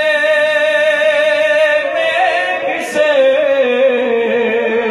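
A man chanting a noha, an Urdu Shia lament, unaccompanied into a microphone, holding long drawn-out wavering notes with a short break about three seconds in.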